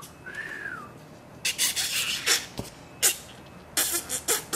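A brief faint tone that rises and falls, then a series of short, sharp hissing bursts.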